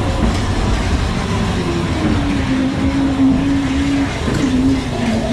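Ghost train car rumbling steadily along its track in the dark ride, with a low drawn-out tone over the rumble that steps down slightly in pitch about two seconds in.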